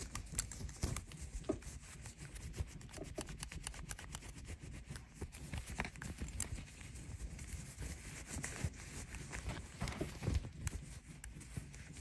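A terry-cloth towel rubbing and wiping a gold-toned metal MCM belt buckle right up against the microphone: an uneven run of scuffs and small knocks over a low handling rumble.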